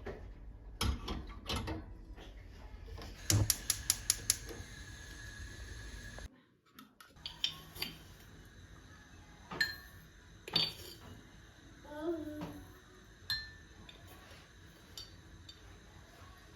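Scattered clicks and knocks of household objects being handled, with dishes and cutlery clinking. A run of about seven quick sharp clicks comes a few seconds in.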